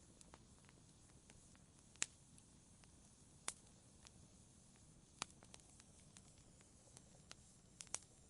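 Wood fire crackling in a fireplace: sharp, irregular pops and snaps over a faint low hiss, the loudest about two, three and a half, five and eight seconds in.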